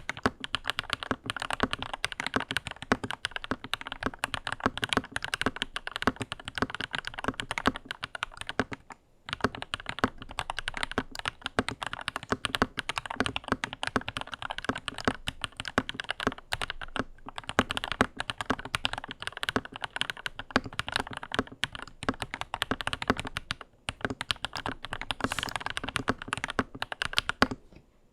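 Lychee G80 mechanical keyboard in stock form with JWK Black linear switches, being typed on steadily in a fast run of keystrokes, with a few brief pauses.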